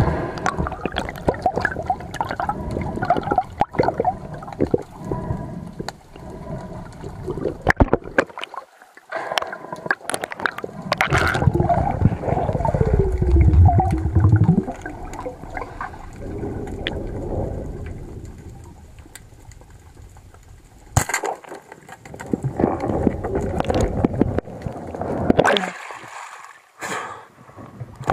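Sea water sloshing and gurgling, with scattered clicks and knocks; the water grows louder and deeper about halfway through.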